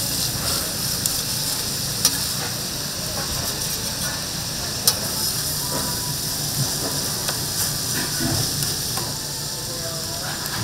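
Tteokgalbi (minced short-rib patties) sizzling steadily as they cook, with two sharp clicks about two and five seconds in.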